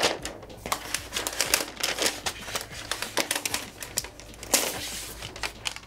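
Protective paper wrap being peeled and pulled off the underside of a new MacBook Air: irregular crinkling and rustling with many sharp crackles, loudest at the start and again about four and a half seconds in.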